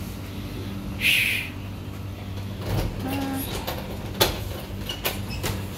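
Front door being unlocked and opened: a few sharp clicks and knocks from the lock and door in the second half, over a steady low hum.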